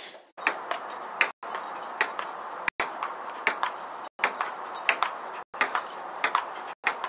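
Table tennis ball bouncing in a rally: a quick, irregular series of sharp clicks, two or three a second.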